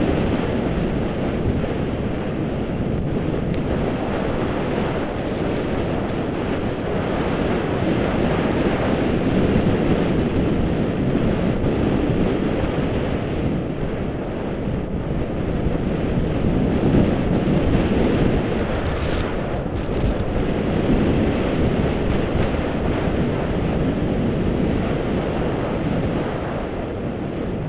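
Wind rushing over the camera's microphone while skiing downhill, mixed with the skis running over snow. A steady, loud rush that swells a little midway.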